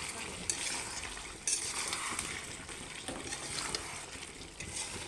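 Chicken and potato curry sizzling in oil in a metal pot while a spoon stirs and scrapes through it, mixing in the ground spices. The meat is cooking down in its own juices and oil with no water added. A sharper scrape comes about one and a half seconds in.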